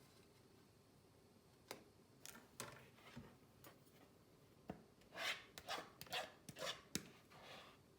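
Objects being handled close by: a few sharp clicks and knocks, then a quick run of short scraping or rubbing strokes with clicks between them, about five to seven seconds in.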